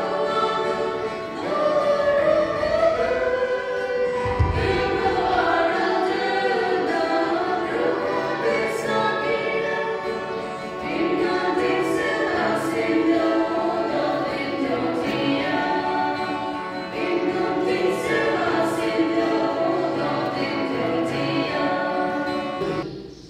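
A choir of women singing a hymn together in sustained notes. It cuts off suddenly near the end.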